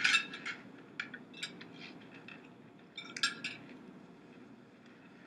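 Cutlery clinking against dinner plates: a few sharp clinks at the start, scattered single clinks after, and another short cluster of clinks about three seconds in.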